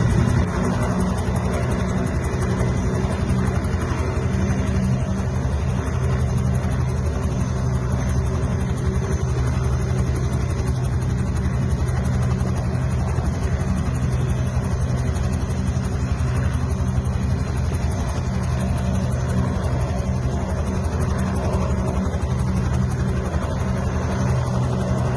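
Ambulance helicopter running on the ground with its turbine engine and rotors turning, a steady even noise with a constant low hum that doesn't change.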